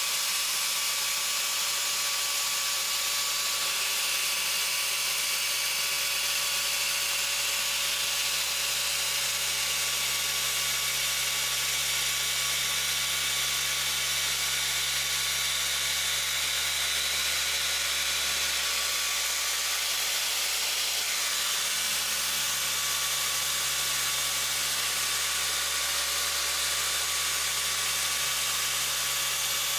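Rotary polisher running steadily while compounding car paint.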